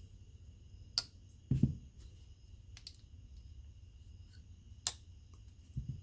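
A few sharp clicks and soft knocks from something being handled at close range, with faint steady high-pitched tones behind them.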